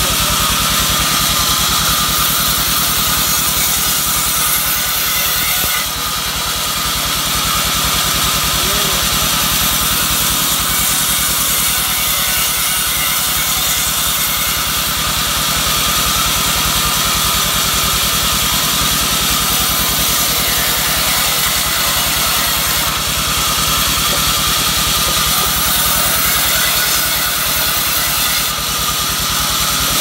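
Band sawmill running and ripping albasia (sengon) boards into rafters: a steady, loud machine hum with the hiss of the blade cutting, dipping briefly twice.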